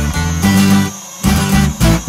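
Guitar-led background music, with chords changing in a quick rhythm and a brief dip in level about a second in.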